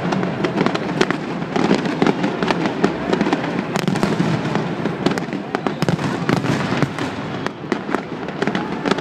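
Fireworks going off in rapid succession: many sharp bangs and crackles over a continuous rumble of explosions.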